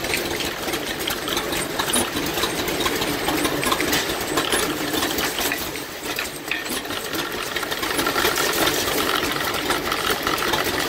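Antique cast-iron wood lathe running with a steady, rapid clatter while a freshly turned wooden baseball bat spins in it, being waxed by hand with a rag.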